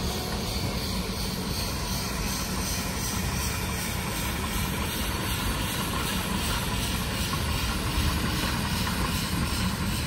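Narrow-gauge Shay steam locomotive running slowly past with its coaches: a steady hiss of steam over a low rumble.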